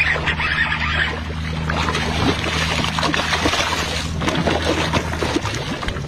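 A hooked fish thrashing and splashing at the water's surface beside a kayak, in irregular bursts of splashing over a steady low hum.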